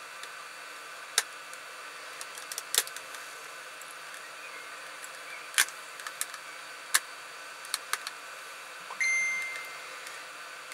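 Small plastic camera housing being worked apart by hand: a scatter of sharp plastic clicks and snaps as the casing is prised and eased off. About two-thirds of the way through, a brief ringing tone sounds and fades over about a second.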